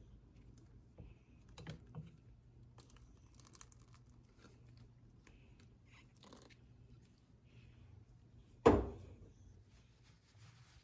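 Quiet handling noises of a hand working with a glass bottle among potted plants: faint scattered clicks and rustles over a low hum, then one sharp knock near the end.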